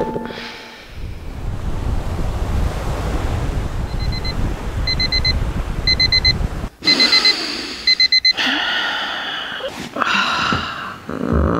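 A deep rushing of wind and surf, with a digital alarm clock beeping in quick bursts of beeps about once a second from about 4 seconds in, louder once the rushing cuts off; a wavering tone follows near the end.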